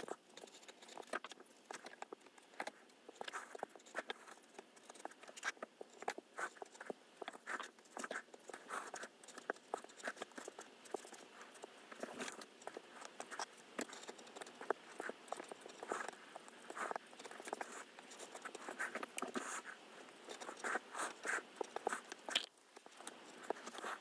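Precision craft knife cutting paper on a self-healing cutting mat: many short, irregular scratching strokes as the blade drags through the paper in small cuts.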